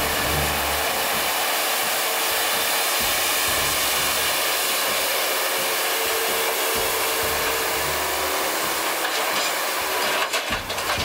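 Background electronic music: a steady hiss-like synth layer over a deep bass pulse that comes about every two and a half seconds.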